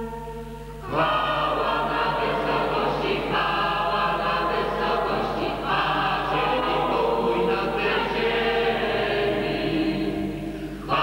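Mixed parish choir, men's and women's voices together, singing a Polish Christmas carol (kolęda). A held chord fades out and the next phrase begins about a second in.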